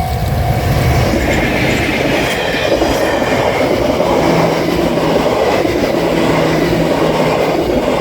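The Royal Express cruise train passing close by over a level crossing, its wheels running loudly over the rails. The crossing bell rings under it at the start and is drowned out as the train goes by.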